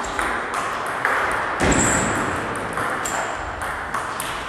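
Table tennis rally: the celluloid ball clicks off paddles and table in a steady series, about two hits a second, with a short echo in the sports hall.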